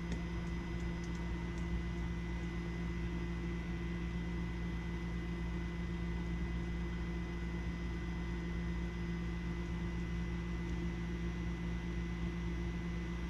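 Small built-in pump of a Fieldpiece pressure switch tester running steadily with an even hum, sucking air out of a furnace pressure switch's port to find the pressure at which the switch closes.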